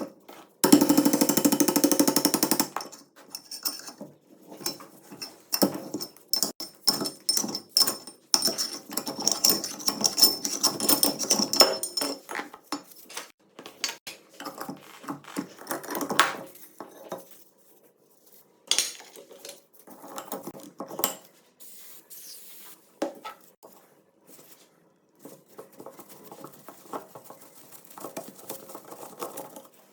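Hand tools working on metal gun parts: irregular metal clinks, knocks and scraping, with a loud rattling burst lasting about two seconds near the start.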